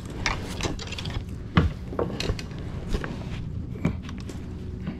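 Irregular knocks, taps and clatter of a just-caught small snapper and fishing gear being handled aboard a kayak, with the sharpest knock about a second and a half in.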